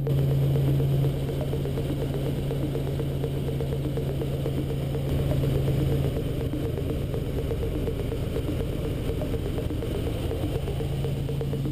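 Robinson R44 helicopter in flight, heard inside the cabin: a steady engine and rotor drone with a fast, even chop. The level steps down about a second in and shifts again around six seconds in.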